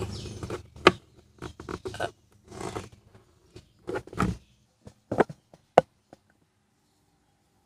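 Hard plastic clicking and scraping as the round plastic stopper on the side of a Kia Cerato's glove box is twisted and worked loose by hand: a series of sharp clicks and short scrapes, stopping about six seconds in.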